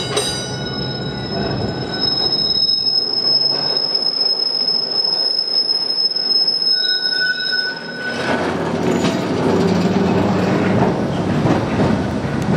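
Sunderland Corporation Tramways No.16 electric tram passing on its rails, its wheels giving a steady high squeal. About eight seconds in the squeal stops and the louder rumble and clatter of the rolling wheels takes over.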